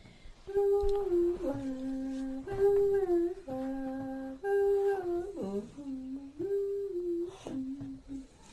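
A person humming a slow melody of held notes, with short breaks between phrases and small slides where the pitch changes.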